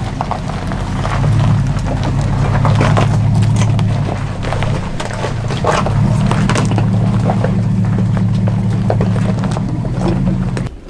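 Vehicle engine running steadily at low speed on a rough off-road trail, with frequent knocks and rattles as the vehicle jolts over the ground. The sound cuts off abruptly near the end.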